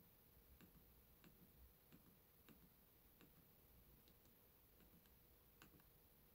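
Faint clicks from the keypad buttons of a Toshiba A3013T flip phone being pressed repeatedly, a little more than one a second.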